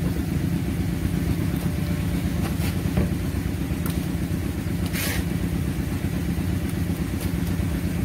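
A small engine running steadily with a low, even throb. A few short clicks come over it near the middle.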